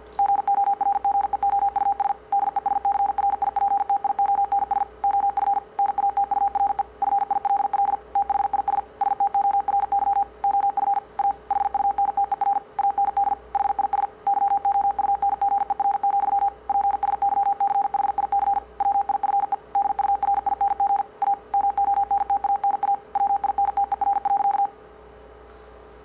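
Morse code sent at 50 words per minute as a pure sine-wave audio tone, played through a speaker: one steady pitch keyed in very fast dots and dashes, with short breaks between words. It stops a little before the end.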